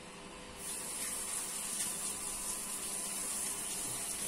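Kitchen tap turned on about half a second in, water running steadily into the sink with a bright hiss.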